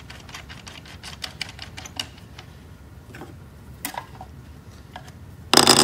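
Light, irregular clicks and taps of parts being fitted on the nose assembly of a Lagler Flip floor edger, with a few sharper clicks, then a short, loud noisy burst near the end.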